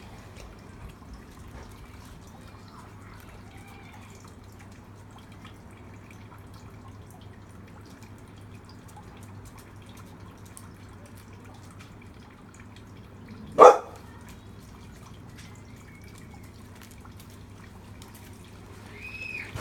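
A dog whimpering in short, faint, high whines that rise and fall, its reaction to noises from the neighbours. About two thirds of the way through there is one short, loud sound, much louder than the whines.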